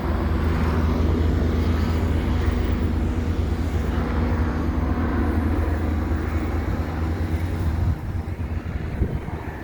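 A steady low engine drone, which drops off sharply about eight seconds in.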